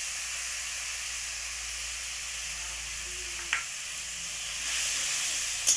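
Capsicum and spices sizzling in oil and a little water in a kadai, a steady hiss that grows a little louder near the end. A sharp click from a utensil against the pan comes about three and a half seconds in and another just before the end.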